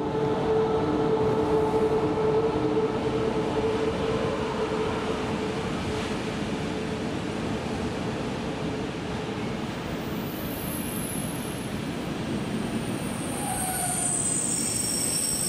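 Intermodal freight train carrying lorry trailers rolling past, a steady rumble of wheels on rail with a steady hum over the first few seconds. High-pitched squealing begins about ten seconds in and continues to the end.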